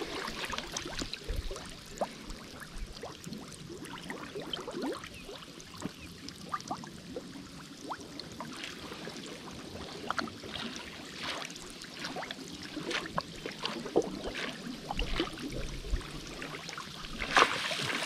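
Water sloshing and trickling, with many small irregular splashes and drips, and a louder splash of water about a second before the end.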